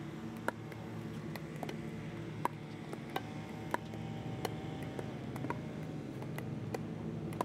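Pickleballs being dinked back and forth: an irregular series of sharp pocks from paddle strikes and bounces, with two balls in play at once. A steady low hum runs underneath.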